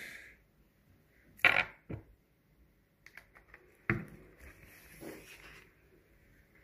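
Handling noise from plastic and metal replica gun parts: two sharp clicks about a second and a half in, a few light ticks around three seconds, and a sharper knock near four seconds.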